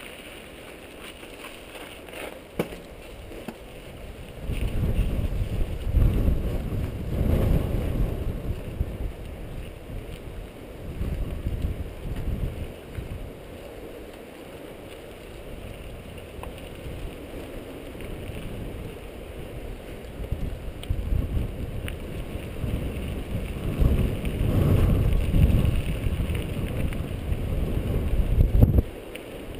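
Wind buffeting the microphone of a camera on a mountain bike riding along dirt singletrack, with the bike's trail noise underneath. The buffeting comes in gusty swells, heaviest for several seconds early on and again near the end, where it cuts off suddenly.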